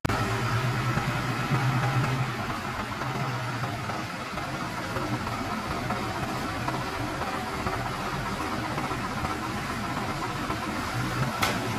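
Diesel engine idling steadily, a low even hum, with a brief click near the end.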